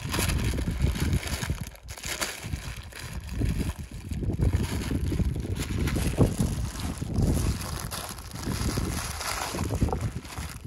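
Paper wrapping crinkling and rustling as it is folded and pressed by hand around a whole fish, over an uneven low rumble of wind on the microphone.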